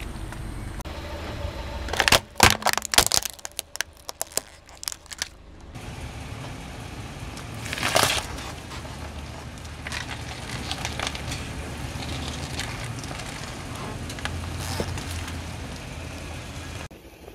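A car tire rolling over and crushing brittle objects: a rapid cluster of loud cracks and snaps about two seconds in, scattered crackling after it, and another loud crunch near eight seconds, over the low steady hum of the car.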